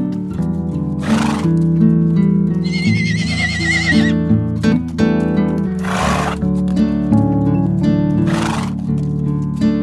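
Background music with steady held notes, and a wavering, whinny-like equine call lasting about a second and a half, about three seconds in.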